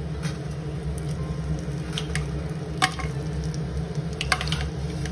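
Whole spices, bay leaves and star anise, sizzling in hot ghee in a steel pot, with a few sharp clicks as more spices are dropped in.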